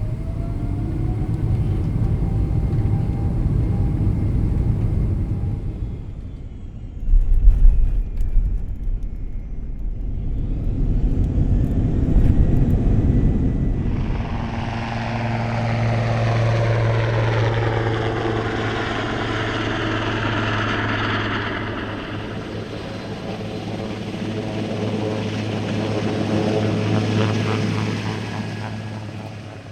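A sequence of aircraft recordings. First comes the steady rumble of a Boeing 777 cabin during a takeoff run with some cabin shudder, then a heavy thump. Next a Boeing 767 cabin descends and lands. From about halfway on, a Sikorsky helicopter's turbines and rotor give a steady whine with slowly shifting overtones, idling and building toward takeoff.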